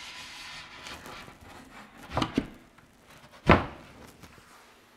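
Wooden wall panelling being handled: a scraping rustle, then two light knocks a little over two seconds in and a single sharper, louder knock about three and a half seconds in.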